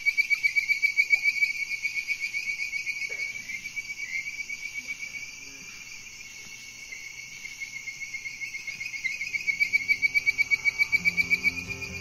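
Chorus of male bird-voiced treefrogs calling: a rapid series of high whistled notes, several a second. It is loudest at the start and again near the end, with a dip in the middle.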